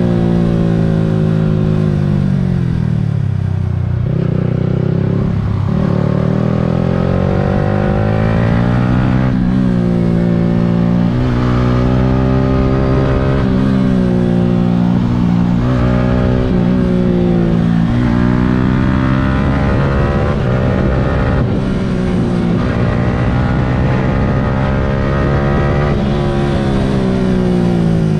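Yamaha R15 v3's 155 cc single-cylinder engine, heard from on the bike, revving up and easing off through the gears. Its pitch climbs and then drops sharply at several gear changes, with a heavy wind rumble on the microphone underneath.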